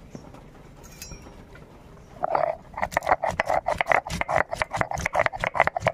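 Whole garam masala spices (cinnamon, cardamom, cloves) being crushed on a stone grinding slab (shil) with a hand-held stone grinder (nora). About two seconds in, a quick run of grinding strokes starts, stone scraping and knocking on stone with the spices crunching between them.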